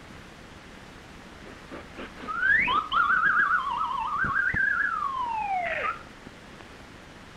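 Cartoon whistle sound effect. A tone slides up, wobbles quickly up and down, then slides down and cuts off about six seconds in. A few light knocks come before and under it.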